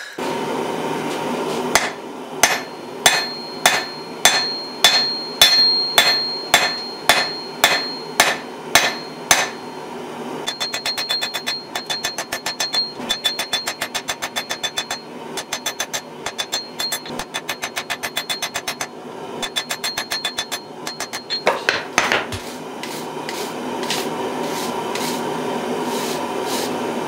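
Hand hammer forging a red-hot damascus steel bar on a steel anvil, the anvil ringing with each strike. Heavy blows come about two a second at first, then lighter, quicker blows about three to four a second.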